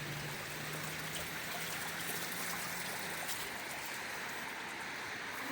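Steady hiss of road traffic on wet tarmac, tyres swishing through surface water, with a low engine hum that fades out about three seconds in.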